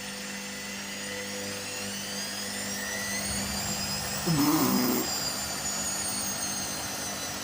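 Washing machine's drum motor speeding up for a short spin while the water is pumped out: a whine that rises in pitch and then levels off, over a steady hum. A brief voice sound about four seconds in.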